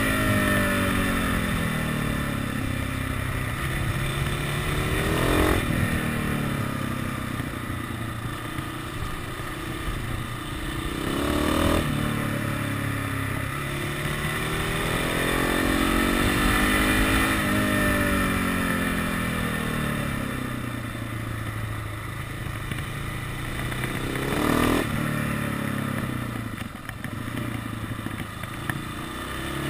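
KTM 690 SMC supermoto's single-cylinder engine under way through a series of corners, its pitch repeatedly falling off and climbing again as the rider eases off and accelerates, with a few sharp jumps in revs.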